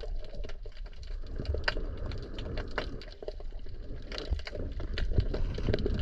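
Underwater sound picked up by a diver's camera: a steady low rumble of moving water with scattered sharp clicks and crackles throughout.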